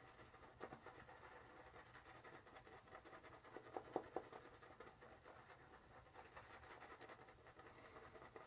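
Silvertip shaving brush faintly swishing and scratching as it works soap lather over a stubbly face, with a few louder strokes about four seconds in.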